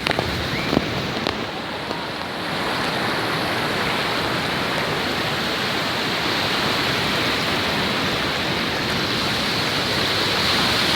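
Steady rushing wash of sea surf, with a few small clicks in the first second.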